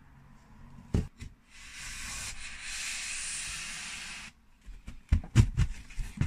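Handling of flat-pack wardrobe panels: a single knock, then about three seconds of steady hissing rub, then a quick run of knocks and bumps near the end.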